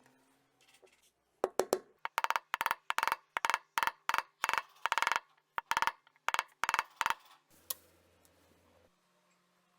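A series of about fifteen sharp hammer blows on metal, roughly two to three a second, each ringing briefly, as when a bearing is driven in or out of a washing machine drum, stopping about two seconds before the end.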